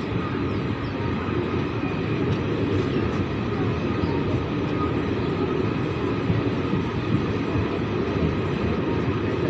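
Passenger train coaches rolling over the track, a steady rumble of wheels and running gear heard from the open doorway of the moving train.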